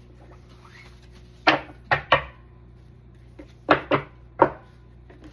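Tarot cards slapped down on a table: six sharp, short slaps in two groups of three, the first group about a second and a half in and the second near the end.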